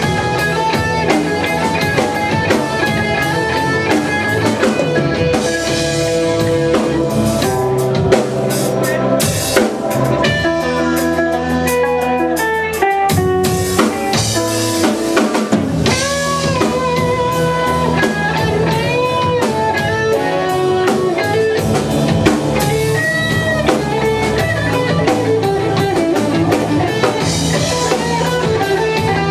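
Live band playing: electric guitar, bass guitar and drum kit.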